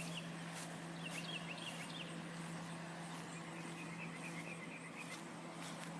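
Faint small-bird chirping outdoors: quick runs of short high notes about a second in and again from about three seconds, over a steady low hum.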